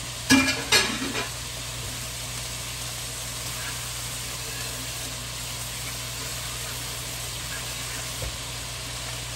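Ground sirloin and diced onion sizzling steadily in a stainless steel skillet on high heat. Two sharp clatters come in the first second.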